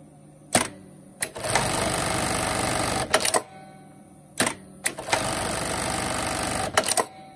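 Juki LK-1900 electronic bartacking machine sewing two bartacks one after the other. Each cycle opens with a sharp clack or two, runs about a second and a half of fast, even stitching, and ends in a few quick clicks.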